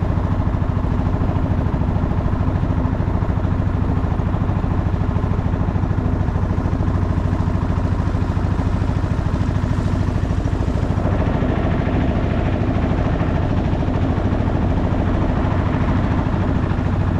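A small boat's engine running steadily while under way, a low, even drone.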